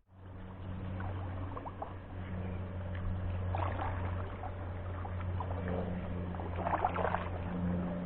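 Kayak on the water: paddle strokes splashing a few times over a steady low hum.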